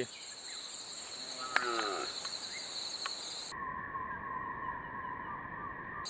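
Steady, shrill chirring of crickets and other insects, with a man's brief distant call about one and a half seconds in. A little past halfway the sound cuts abruptly to a lower, steady two-tone drone.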